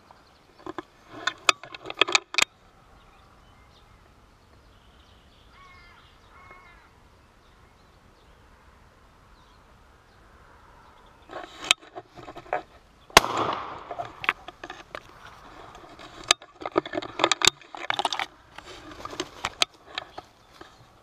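Clattering and knocking of a shotgun being handled in a camouflage-net hide, with one loud sharp crack about 13 seconds in. In the quiet stretch before it, a crow gives two faint short caws.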